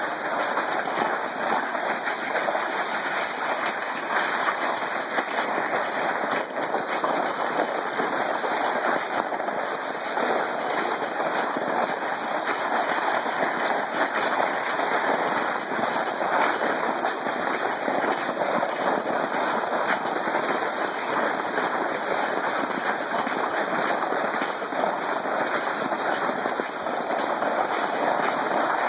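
Plastic sled sliding over packed snow while being towed, a steady scraping hiss that never lets up.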